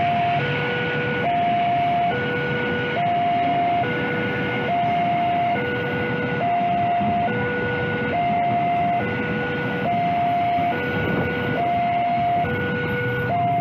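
Railway level-crossing warning alarm sounding its two alternating tones, just under a second each, over and over, while a freight train of tank wagons rolls past with a steady rumble of wheels on the rails.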